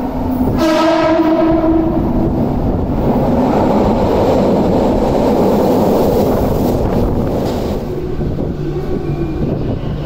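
Toei Oedo Line 12-000 series subway train sounding its horn once, a steady blast of about two seconds that starts under a second in. The horn is followed by the loud rush and rumble of the train running into the underground platform, which eases off near the end.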